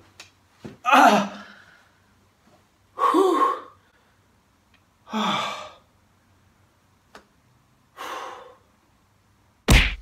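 A man sighing and groaning, four long breathy exhalations about two seconds apart. A short, loud hit comes just before the end.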